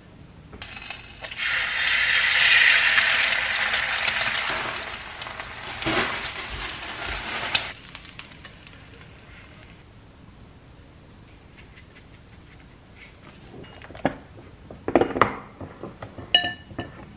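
An egg sizzling as it fries in hot oil in a pan, a steady hiss for several seconds that then cuts off. Near the end, a quick run of clinks as utensils strike a ceramic plate.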